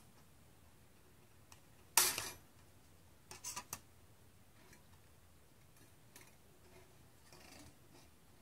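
Thin steel sheet and parts of a Metal Earth model kit being snipped and handled: a sharp metallic crunch about two seconds in, then a quick run of light metal clicks a little later, with a few small ticks and a faint rustle near the end.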